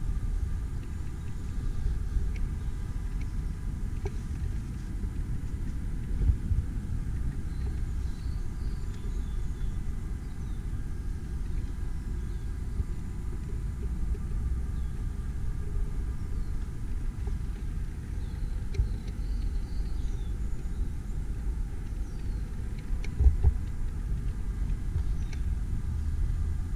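A 1968 Triumph GT6's straight-six engine running steadily at idle, heard close up with the bonnet open as an even low rumble.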